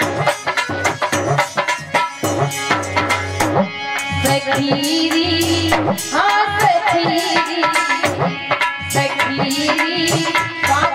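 Devotional bhajan music: hand drums playing rapid strokes, joined after about four seconds by long held melodic notes as a woman's singing voice comes in over the drumming.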